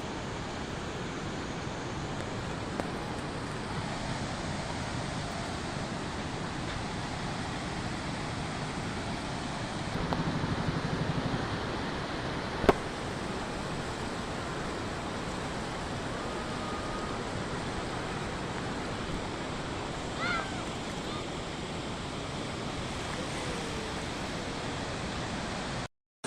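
Steady rushing of river water mixed with wind, an even noise throughout. About ten seconds in a low pulsing hum rises briefly, followed by a single sharp click.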